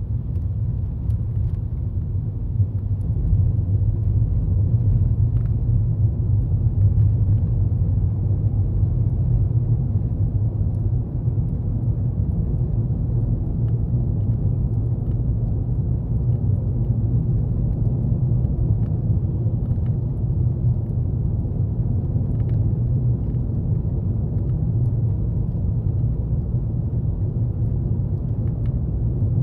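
Steady low rumble of a Toyota Estima minivan's engine and road noise, heard from inside the cabin while driving, with a few faint light clicks.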